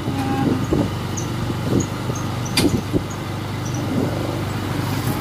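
Motorcycle engine running steadily on the move, with road noise. A single sharp click about two and a half seconds in.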